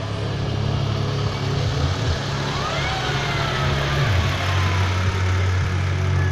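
MAN tractor unit's diesel engine running as the truck drives slowly past close by, a low steady drone whose note drops about four seconds in as it goes by.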